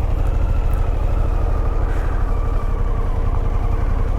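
Harley-Davidson Pan America's V-twin engine running steadily at low speed, under a heavy low rumble of wind on the microphone.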